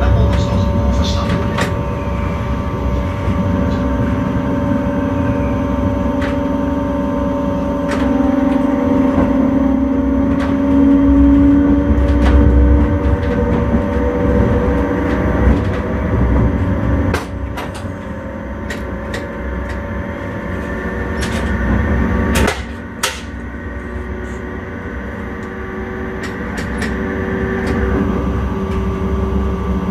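Electric intercity train running, heard from the driver's cab: a steady rumble with a motor whine that rises slightly in pitch over the first dozen seconds as it speeds up. Sharp clicks and knocks come from the wheels over the track, most of them after the sound drops off about 17 seconds in.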